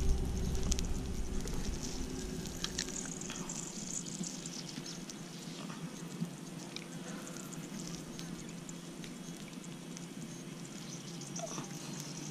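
Silkworm pupae sizzling on a hot stone over a wood fire: a steady hiss with scattered small pops and ticks.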